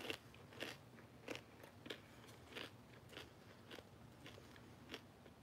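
A person chewing a crunchy puffed snack cake with their mouth, giving a faint crunch about every two-thirds of a second.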